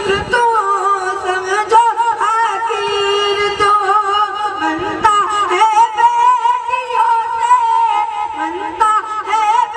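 A boy singing a naat solo into a microphone, in a high voice, holding long notes that waver and bend in ornamented turns.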